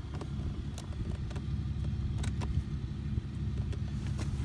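A steady low hum with a few light clicks and taps of plastic parts being handled.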